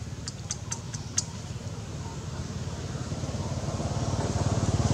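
An engine running with a fast, even pulse, growing steadily louder as it draws near. A few sharp clicks in the first second or so.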